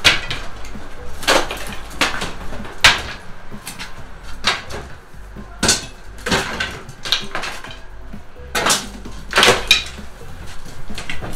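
Demolition with hand tools: an irregular string of sharp knocks and cracks as old plaster, lath and wall tile are struck and pried off, with debris clattering down.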